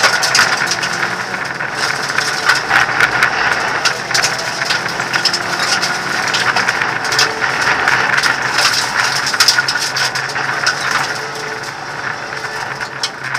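Hyundai Accent rally car driven hard on a gravel stage, heard from inside the cabin: the engine runs under load while loose stones clatter against the underbody and the stripped interior rattles with a constant stream of sharp clicks and knocks.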